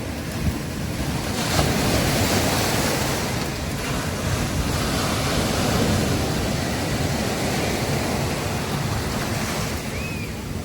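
Sea waves breaking on a beach: a wave surges in about a second and a half in and its wash slowly subsides.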